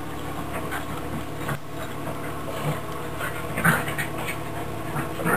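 Two Lhasa Apso dogs play-wrestling, making a few short dog noises; the loudest comes nearly four seconds in.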